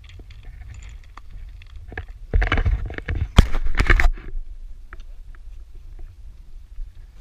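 Steady low wind rumble on a handheld camera's microphone, with a loud burst of handling noise, knocks and rubbing on the camera body, for about two seconds in the middle as the camera is turned round.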